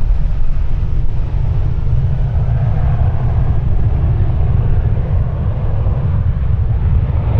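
Wind buffeting the microphone in a steady low rumble, with the engine noise of a passing jet aircraft building from about a third of the way in.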